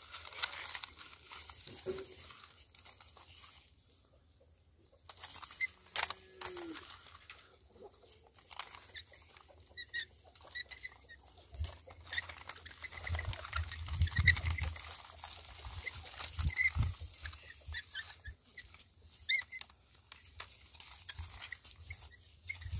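Toy tractor with mud-caked wheels and a toy scarifier pushed by hand through wet clay soil: uneven scraping and crackling of the mud, with a few dull low thumps about halfway through.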